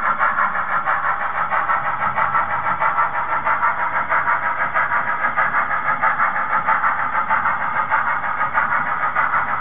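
HOn3 narrow-gauge model freight train running along the track: a steady clatter of the cars rolling, pulsing regularly a few times a second.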